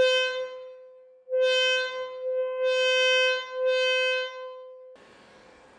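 A loud, buzzy steady tone at about 505 Hz, the wine glass's resonant frequency, is blasted from a loudspeaker driver aimed at the glass. Its volume swells up and dips several times, then it cuts off about five seconds in.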